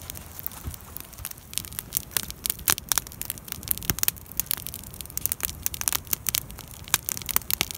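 Small stick fire burning and crackling, with many sharp snaps at irregular intervals.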